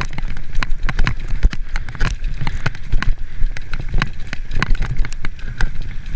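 Mountain bike descending rocky singletrack: irregular clattering knocks as the wheels and frame rattle over rocks, over the low rumble of tyres rolling on dirt, picked up by a camera mounted on the rider.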